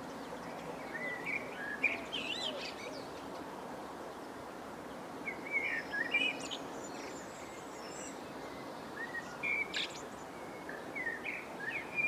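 Small songbirds chirping in quick twittering groups that come three times, each lasting a second or two, over a steady background hum of outdoor noise.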